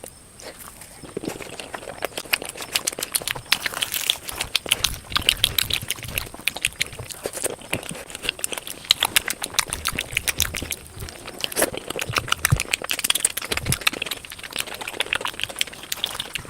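Close-miked chewing and lip-smacking while eating, a dense run of wet mouth clicks.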